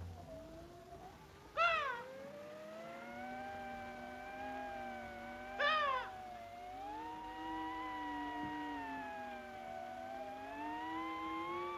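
Eerie cartoon soundtrack: a long, slowly wavering moaning tone that rises and falls in pitch, broken twice by a short rising-and-falling cry, about two seconds in and again about six seconds in.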